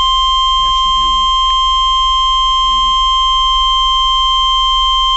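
Emergency Alert System weather alert tone from NOAA Weather Radio: a single steady electronic tone near 1 kHz, the warning alarm tone that signals a severe thunderstorm warning message is about to be read. Faint voices can be heard underneath.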